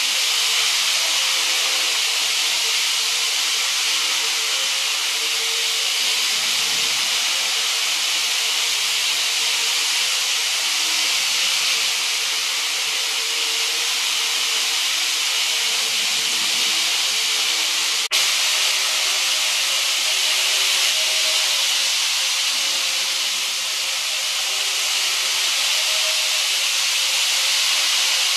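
Model Shinkansen trains running on elevated track: a steady high hiss of wheels rolling on rail with a faint, wavering motor hum. A single sharp click about two thirds of the way through.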